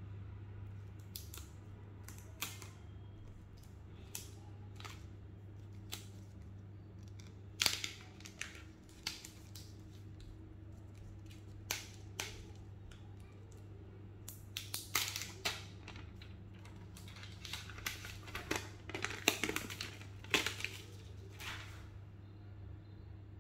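Scattered clicks, taps and light rustles of a smartphone and its packaging being handled, in clusters about halfway through and near the end, over a steady low hum.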